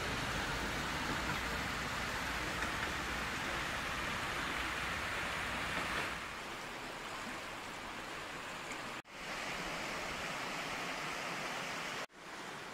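Steady rushing hiss of a river flowing, with no distinct splashes or knocks, broken by two brief drop-outs where the shots change.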